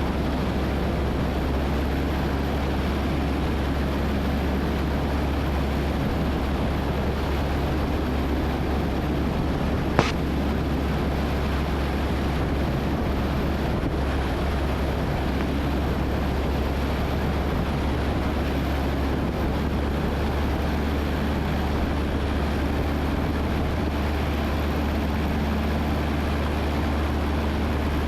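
Single-engine Cessna 172N's piston engine and propeller droning steadily in level flight in the traffic pattern. A single short click comes about ten seconds in.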